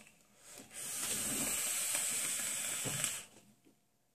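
Fused Clapton coils in a dripping atomizer firing at 75 watts, the e-liquid crackling and sizzling with an airflow hiss during one long draw. It starts about three-quarters of a second in, holds steady for about two and a half seconds, then cuts off as the draw ends.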